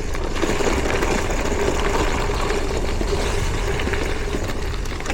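Steady wind rumble buffeting the microphone while riding a gravel bike, with the hiss of rolling tyres.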